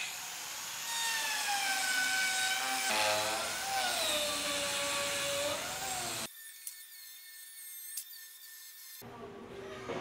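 A handheld power tool working wood: a motor whine that dips in pitch as it bites into the wood. It cuts off abruptly about six seconds in, leaving a quieter stretch with a few clicks, before another burst of tool noise near the end.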